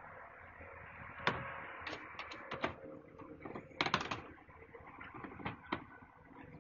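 Irregular sharp cracks and knocks as a pack of stray dogs bite and tear at a parked van's front bumper, the loudest about a second in and a cluster around four seconds in.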